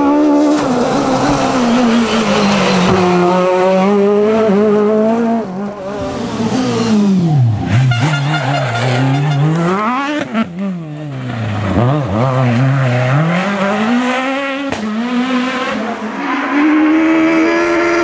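Peugeot 306 Maxi rally cars' naturally aspirated four-cylinder engines revving hard. The pitch climbs and drops again and again as the cars accelerate and slow for corners, with two deep dips in the middle.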